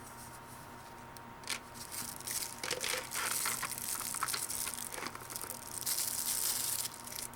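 Packaging crinkling and rustling as a new pocket knife is unwrapped, with small crackles, starting about a second and a half in and stopping near the end.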